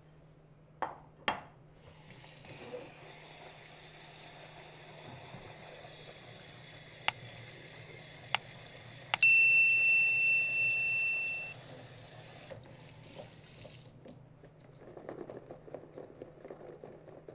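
Tap water running steadily over habanero peppers in a plastic colander as they are rinsed, stopping about fourteen seconds in. Partway through come two sharp clicks and then a loud ringing chime, a subscribe-button sound effect, the loudest thing here.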